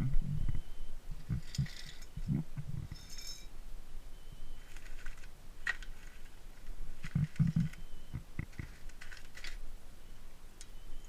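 Metal clinks, taps and dull knocks of hand tools and brake parts being handled, irregular and scattered, with one short ringing metallic clink about three seconds in.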